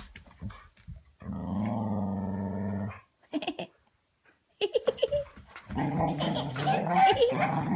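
Dogs play-growling as they tussle on the floor: one long low growl held for about two seconds, then, after a short pause, a few short yelps and more growling that gets busier toward the end.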